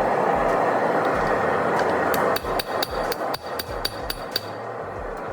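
Hand hammer striking hot steel on an anvil, a quick run of about a dozen ringing blows at roughly five a second, over a steady rushing noise that gives way to quieter room noise once the hammering stops.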